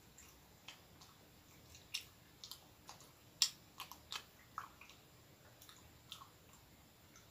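A person chewing a soft filled bread roll close to the microphone: scattered mouth clicks and smacks, busiest in the middle, with the sharpest smack about three and a half seconds in.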